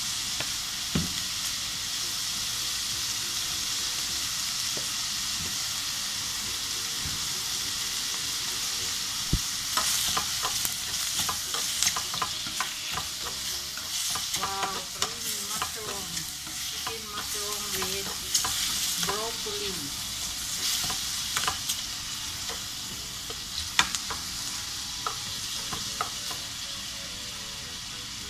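Sliced mushrooms and onions sizzling in a stainless steel pan. From about ten seconds in, a spatula stirs them, with many short clicks and scrapes against the pan over the steady sizzle.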